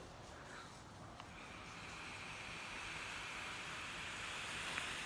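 A steady hiss of about four and a half seconds, starting about a second in: a vape hit, air drawn through a dripping atomizer while its coils fire.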